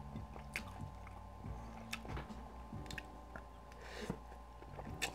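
Close-up chewing of a mouthful of spicy noodles, with small wet mouth clicks, and a short slurp of a noodle strand about four seconds in.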